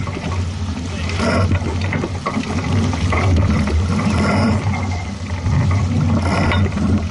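Steady low rumble with water and wind noise aboard a boat under way.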